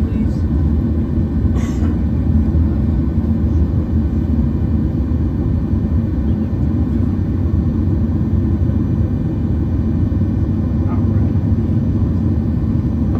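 Steady low rumble inside the cabin of a Boeing 737-800, its CFM56 jet engines running at low power, with a brief click about a second and a half in.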